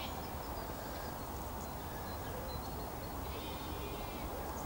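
Quiet canal-side evening ambience: a steady hush of background noise, with one short pitched animal call lasting under a second about three seconds in.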